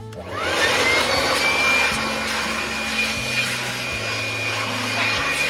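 Electric blower switched on and blowing water off a washed engine bay: its motor whine rises in pitch over the first second or so, then holds steady under a loud rush of air.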